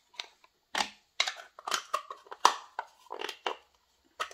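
Clear plastic packaging crinkling in the hands, with small clicks of plastic craft pieces being handled, in a rapid irregular series that stops shortly before the end.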